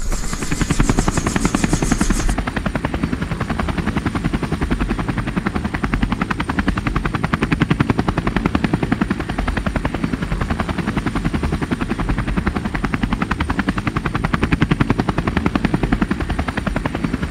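Helicopter running close by, its main rotor making a rapid, steady beat over a loud engine and rotor noise. The sound changes slightly about two seconds in.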